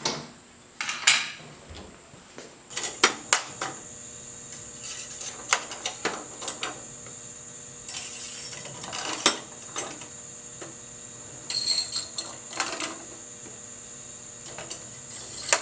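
Small metal parts or tools being handled: irregular clinks and clatters, some in quick clusters.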